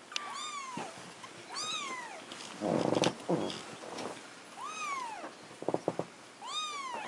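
Young kittens mewing: about four high, thin calls that rise and then fall in pitch, spaced a second or two apart. About three seconds in there is a rough, buzzing sound, and near six seconds a few quick clicks.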